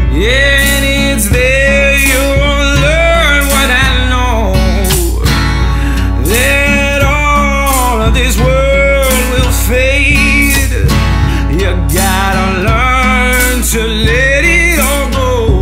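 Background music: a country song with singing over guitar and a steady beat.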